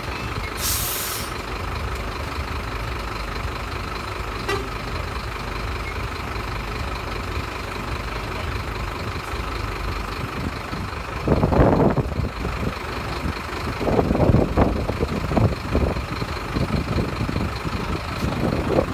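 A fire engine's diesel engine idling steadily, with a short hiss about a second in. Louder irregular sounds join from about eleven seconds in.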